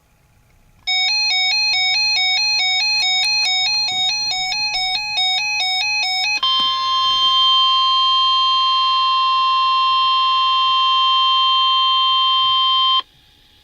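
NOAA Weather Radio alert: a burst of rapidly alternating electronic data tones (the SAME header), then a steady, shrill single alert tone for about six seconds that cuts off suddenly. It announces a tornado warning broadcast.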